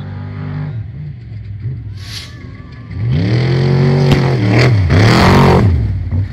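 Off-road race car at full throttle coming up and passing close by, much louder from about three seconds in. The engine note drops and climbs again twice as it shifts and revs past, then starts to fade.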